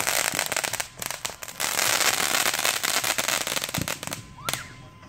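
Ground-launched firework spraying a column of sparks with a dense, rapid crackle that swells in the middle and stops about four seconds in. A brief rising whistle follows just after.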